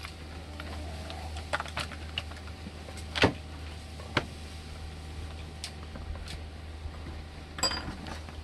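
Scattered sharp clicks and knocks of a Salem Master 6220G chainsaw's bar, chain and plastic side cover being handled and set in place during assembly, the loudest a little over three seconds in, over a steady low hum.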